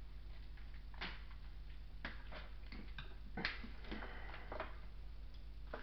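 Several light, irregular clicks and taps, the sharpest about three and a half seconds in, over a steady low hum.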